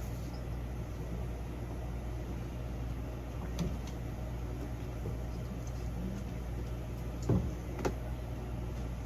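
Steady low hum with a few short clicks or knocks: one about midway and two close together near the end.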